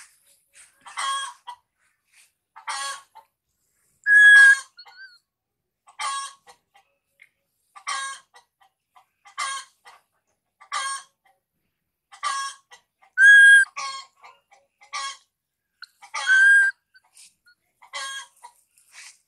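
Baby macaque crying: about a dozen short, high calls repeated roughly every one and a half seconds, three of them louder and more drawn out, the cries of an infant left on its own.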